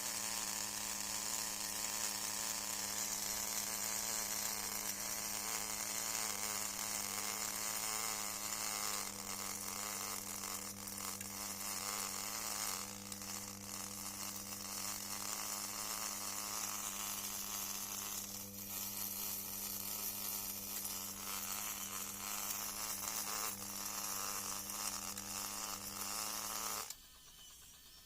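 Small electric motor of a model borewell drilling machine running steadily with a hum and a high hiss, then cutting off suddenly near the end.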